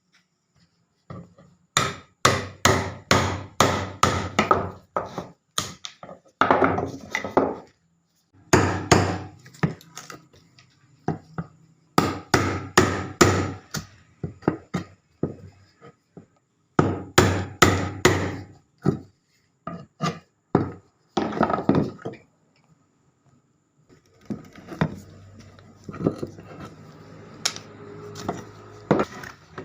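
Hammer blows on wood, coming in quick runs of several strikes a second with short pauses between the runs, then a quieter, more continuous working noise near the end.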